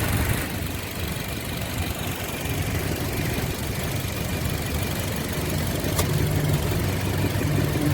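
2007 Toyota Yaris engine idling with a misfire: the ignition coil on one cylinder gives no spark, so that cylinder is not firing. A single sharp click about six seconds in.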